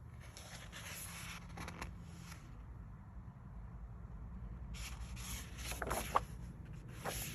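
Paper pages of a soft-cover book rubbing and sliding as they are turned, in two soft brushing swishes with a small tick near the end of the second.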